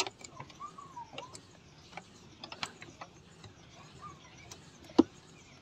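Faint scattered clicks and small creaks, with one sharper knock about five seconds in.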